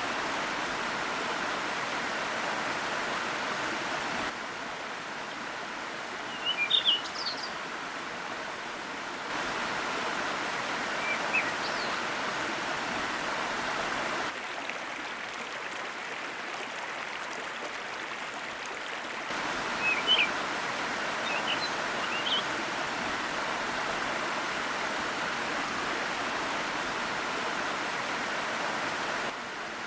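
Sopit Waterfall's cascading water rushing as a steady hiss, stepping up and down in level every five seconds or so. Short bird chirps come a few times: about six to seven seconds in, around eleven seconds, and several between twenty and twenty-two seconds.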